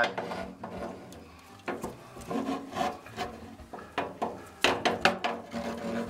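A black iron gas pipe nipple scraping and knocking against the furnace's sheet-metal cabinet as it is fed in by hand toward the gas valve: a run of irregular rubs and clanks.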